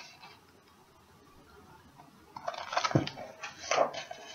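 Picture-book pages rustling and flapping as the book is handled and a page turned, starting about halfway in after a near-silent pause, with a sharp paper snap about three seconds in.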